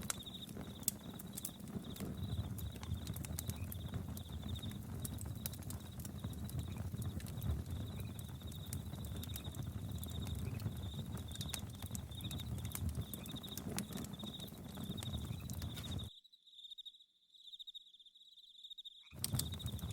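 Campfire crackling and popping over a low rumble, with crickets chirping in a steady high pulsing trill. About three seconds before the end the fire sound drops away for a few seconds, leaving the crickets alone, then comes back.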